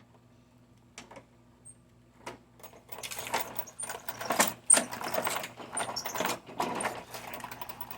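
Irregular clicks and rustling handling noises, a few faint clicks at first, then getting louder and busier about three seconds in.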